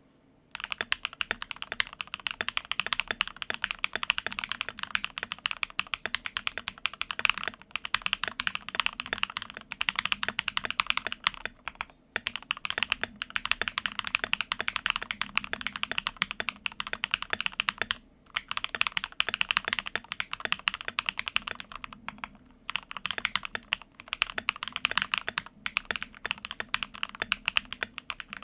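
Fast continuous typing on a modded Royal Kludge RK87 mechanical keyboard with lubed Milky Cream (NK Cream stem) and Gateron Red switches, PBT keycaps, and tape and foam dampening mods, pausing briefly twice. The owner notes the lubed, clipped stabilizers still tick and rattle slightly, for lack of a Holee mod or from too little or too much lube.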